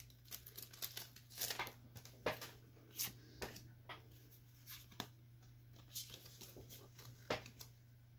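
Foil wrapper of a Pokémon TCG Celebrations booster pack crinkling and tearing open: a quick run of crackles over the first few seconds, then sparser crackles as the cards are handled.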